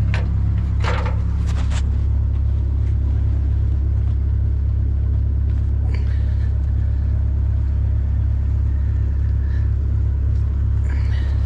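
An engine running with a steady low rumble, with a few sharp metallic clinks about a second in.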